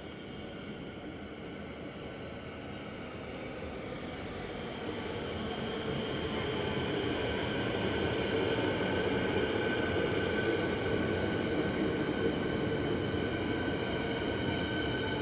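Melbourne suburban electric train arriving at the platform, its running noise growing louder over the first half and then holding steady, with a steady high whine over it.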